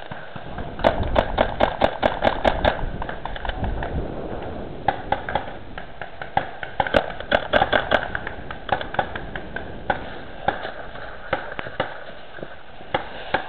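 Paintball markers firing, with sharp pops in quick runs of several shots a second, once about a second in and again around seven seconds in, and single shots in between.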